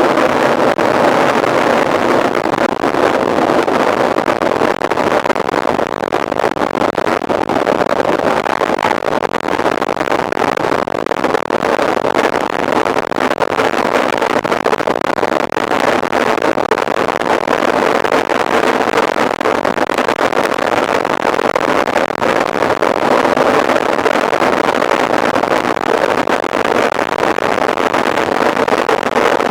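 Steady rushing noise of a mountain bike ridden at race pace, with wind on the microphone.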